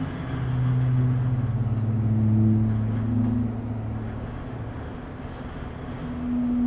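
Drum feedback: large drums ringing with amplified feedback as a low, steady hum that swells about half a second in and fades out around four seconds in. Higher steady tones sit above it, and one of them swells again near the end.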